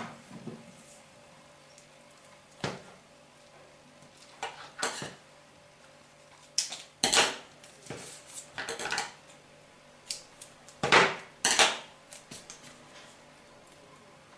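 Double-sided tape being pulled from its roll and stuck onto a small piece of card, heard as scattered short rasps and clicks with quiet between; the loudest come about 7 and 11 seconds in.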